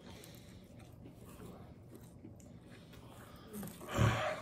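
Faint chewing of a boneless chicken wing, then about four seconds in a short, loud, breathy exhale with a little voice in it, a reaction to the heat of a jalapeño.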